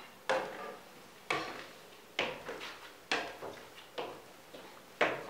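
Slow footsteps climbing a staircase, about one step a second, each a sharp knock that fades quickly.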